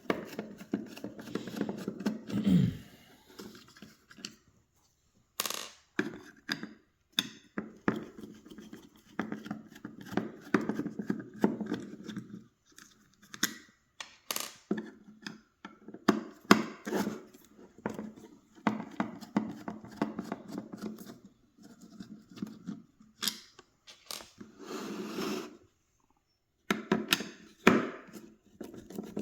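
Hand work on a car speaker's housing as it is taken apart: irregular clicks, taps and knocks of a screwdriver and the plastic and metal parts being handled, with short rustling scrapes between them and a few brief pauses.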